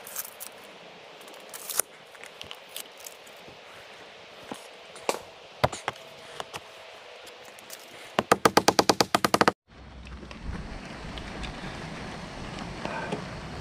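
Scattered knocks and taps on corrugated Ondura roofing panels, then a fast even run of about a dozen sharp knocks in a second and a half that cuts off abruptly. After that, a steady low rumble.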